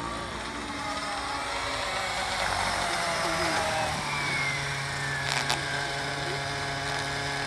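Nitro engine and rotor of a SAB Goblin 700 Nitro RC helicopter running, its pitch falling over the first few seconds as it comes down, then holding steady at idle with the rotor spinning on the ground.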